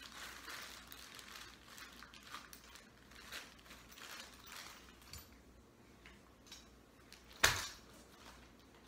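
Rustling and small clicks of clothing and packed goods being handled on the floor, with one sharp knock about seven and a half seconds in, the loudest sound.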